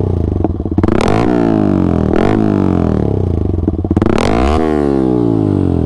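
Yamaha R15M's 155 cc single-cylinder engine through an SC Project full-system exhaust, revved in three sharp throttle blips, about one, two and four seconds in, each falling back toward idle. A very strong, loud exhaust note.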